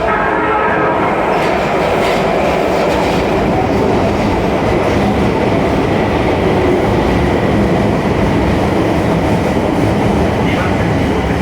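Osaka Metro Tanimachi Line subway train moving through the station, a steady, loud rumble of wheels on rail and running gear.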